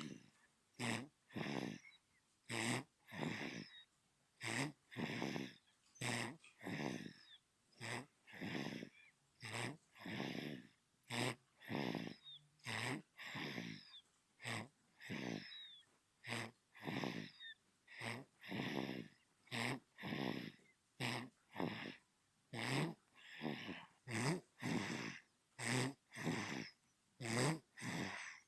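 Newborn baby snoring in its sleep: quick, regular breaths in and out, each a short rasping snore, with brief quiet gaps between.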